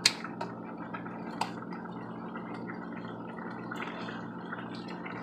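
Chicken in Sprite and oyster sauce simmering with small bubbling sounds in a frying pan. Several sharp clicks and snips come from kitchen scissors cutting a whole cooked chicken in half; the loudest is right at the start.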